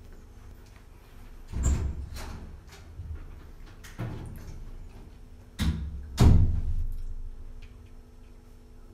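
A series of dull thumps, about six of them, the loudest about six seconds in, over a faint steady hum.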